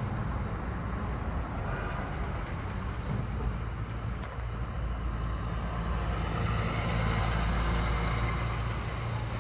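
City street traffic: cars driving past over a steady low engine rumble.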